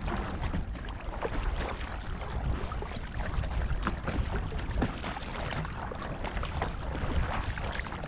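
Kayak paddle strokes: water splashing and dripping off the blades in scattered little splashes, with wind rumbling on the microphone.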